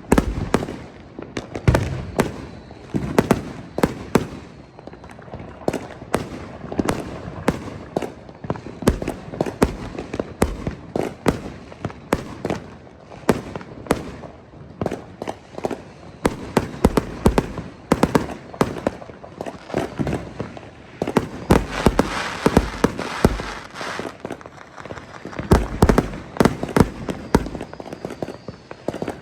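Gunfire at a shooting range: a rapid, irregular series of sharp shots, several a second, overlapping as from more than one shooter.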